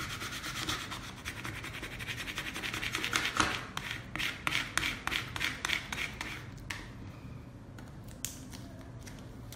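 A plastic credit card scraped back and forth over a vinyl decal under clear transfer paper, smoothing the decal down onto the transfer tape. A quick run of short scraping strokes that thins out to a few scattered scrapes about seven seconds in.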